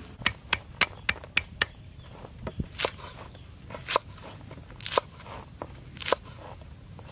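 A cleaver chopping through a bundle of long beans onto a wooden chopping block. It makes a series of sharp chops, quick at first, then louder and about one a second.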